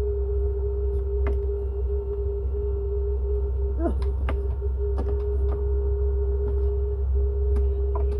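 A steady low hum with a constant thin whine, as of a small motor running, overlaid by scattered clicks and light rattles from handling cables and fittings.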